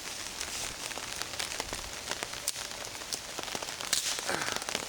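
Rain pattering on a tarp overhead, a steady hiss full of small drop clicks, with one sharper knock about four seconds in.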